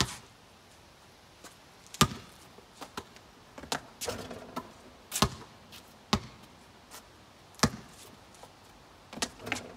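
A basketball bouncing on the court and hitting the backboard: about seven single sharp thuds at irregular gaps, one with a brief rattle after it around four seconds in.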